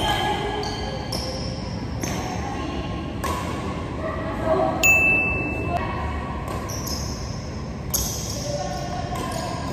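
Badminton play on an indoor court: rackets striking the shuttlecock in sharp, ringing pings about once a second, over the noise of the hall.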